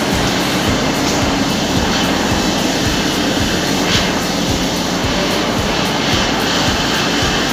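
Copper wire machinery running in a workshop: a steady, loud mechanical din.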